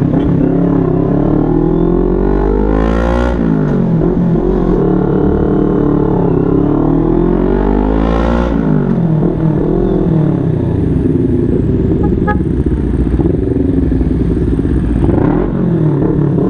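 CFMoto 400NK parallel-twin engine through an SC-Project aftermarket exhaust, accelerating up through the gears. The pitch climbs, drops sharply at a shift about three seconds in, climbs again and drops at another shift about halfway through, then settles into steady cruising, with low wind rumble on the microphone.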